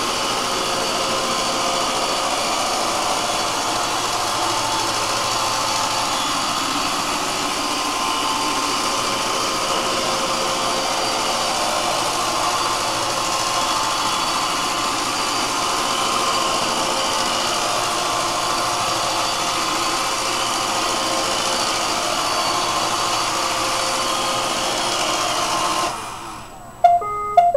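Roomba 551 robot vacuum running steadily, its motor and brushes whirring, then shutting off suddenly near the end, followed by a few short beeps.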